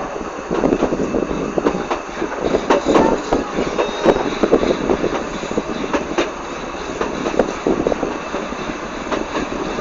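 Narrow-gauge train running along the track, its carriage rattling and the wheels clattering with frequent irregular knocks.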